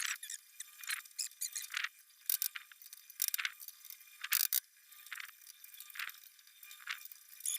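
Steel shelving parts squeaking and clinking as they are fitted together: short, irregular squeaks and clinks, one or two a second, with a thin, tinny sound.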